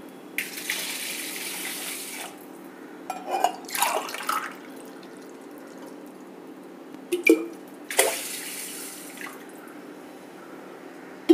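Water poured from a copper jug into a steel tumbler, then tipped from the tumbler into a steel bowl of washed rice: measuring water for cooking rice. A second pour into the tumbler comes about eight seconds in, just after a light clink of metal.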